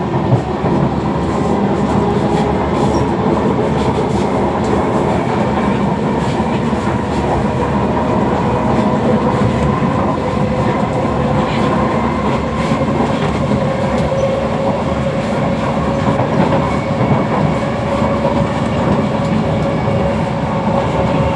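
Kawasaki Heavy Industries C151 metro train running between stations, heard inside the carriage: a steady rumble of wheels on track with a continuous hum of several steady tones from its GTO chopper traction equipment, and a few light clicks.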